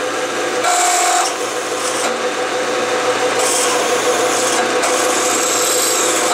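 Bridgeport milling machine spindle running with a steady hum while a 0.374-inch reamer cuts into an oiled, pre-drilled hole, giving a rasping, scraping cutting sound in three stretches.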